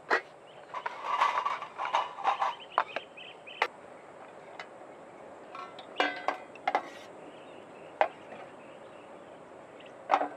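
Metal camping cookware clinking and clattering as it is handled: stainless steel mugs knocked together in a wire basket, a busy run of clinks in the first few seconds, then a pot's wire handle and S-hooks clicking against a hanging rack, ending in a single sharp click.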